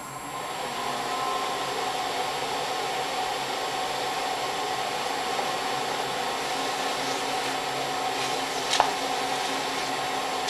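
Graphtec CE5000-60 vinyl cutter running, its motors whining steadily as the tool carriage travels and the rollers feed the transfer sheet, with one sharp click near the end.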